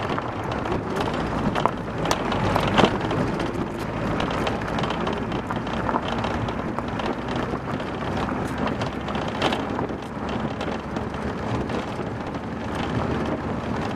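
Minibus on the move: the engine's steady low hum under dense road and wind noise, with occasional sharp knocks and rattles, the loudest near the third second.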